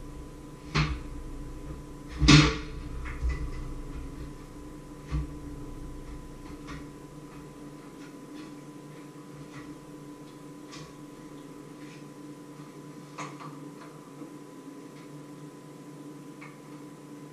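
A few sharp knocks and bumps of things being handled, the loudest about two seconds in and weaker ones later, over a steady low hum.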